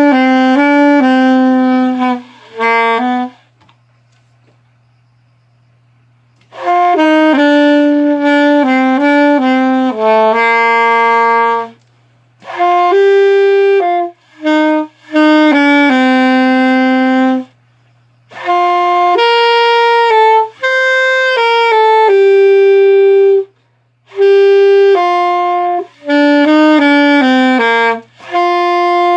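A solo wind instrument plays a slow melody unaccompanied, one sustained note at a time, in phrases. Near the start there is a pause of about three seconds, and there are short breaths between the later phrases.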